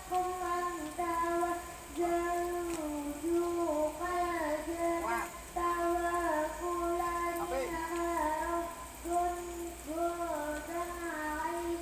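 Young, high-pitched voices singing a simple tune, holding each note for about half a second to a second with short breaks between.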